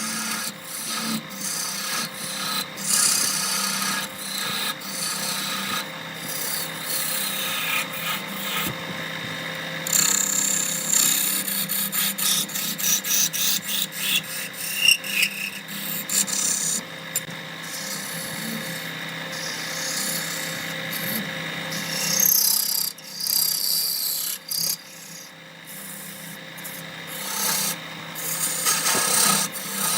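Wood lathe running with a steady motor hum while a turning tool scrapes and cuts the spinning wood in irregular strokes. The cutting eases off about two thirds of the way through, leaving mostly the motor.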